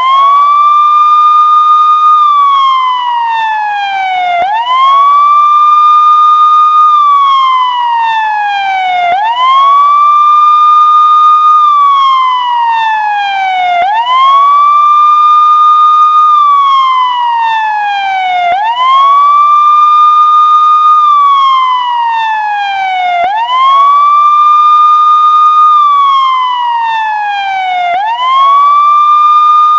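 Emergency vehicle siren on a slow wail. Each cycle sweeps up quickly, holds its top pitch briefly, then slides back down, repeating about every four and a half seconds.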